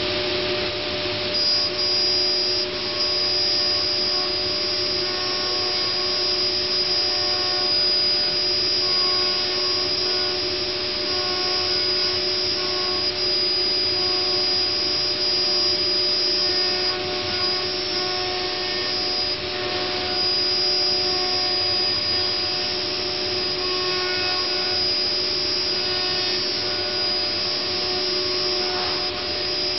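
Multicam 3000 Series CNC router running: its 7.5 HP spindle whines steadily over a constant rush of air, with shorter higher-pitched tones coming and going as the machine moves.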